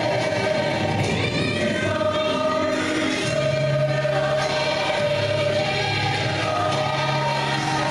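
A choir singing with music, holding long notes.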